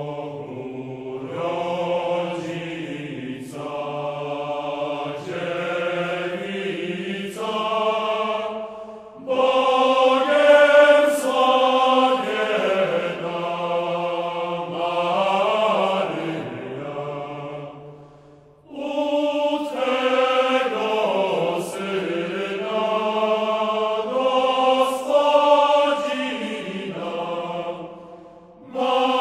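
Choral chanting in long, slow held phrases, the voices moving in steps from note to note. It breaks off briefly about nine seconds in, again about eighteen seconds in, and near the end.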